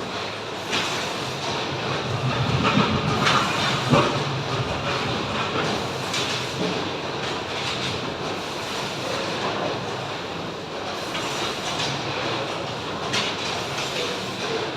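Steady mechanical rumble and rattle with scattered sharp knocks.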